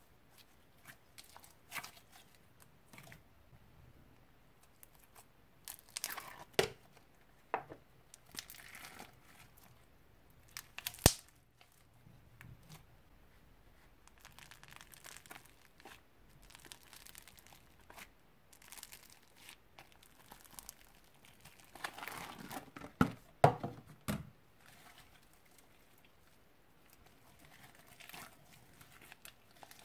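Old slime being stretched, squished and folded together by hand, giving irregular sticky crackles and pops. There is a single sharp pop about eleven seconds in and a louder run of pops and squelches about three-quarters of the way through.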